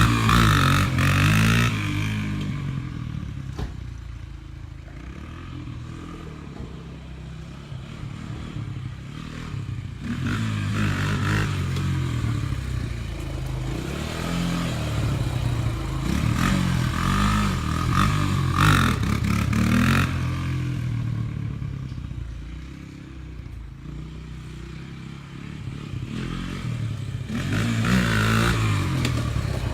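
Honda TRX250 Fourtrax ATV's single-cylinder engine revving up and easing off again and again as it is ridden, growing louder and fainter several times as it comes near and moves away.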